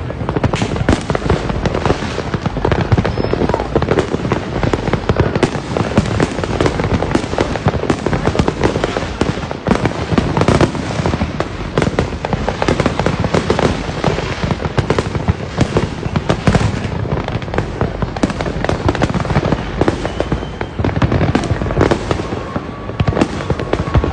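Dense barrage of fireworks and firecrackers: continuous overlapping cracks, pops and bangs with no let-up.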